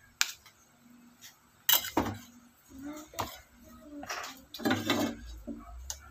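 Kitchen clatter of a frying pan and cooking utensils: a string of short clinks and knocks, the sharpest about two seconds in, and a longer clattering scrape at about five seconds.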